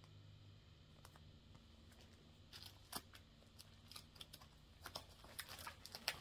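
Faint rustling and light taps of paper cross-stitch charts being handled and sorted, with a few brief crisp rustles, more of them in the second half, over a low steady room hum.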